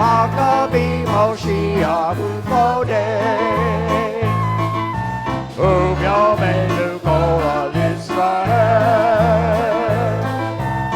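Worship song: a singer holding notes with vibrato over a steady bass line and a regular drum beat.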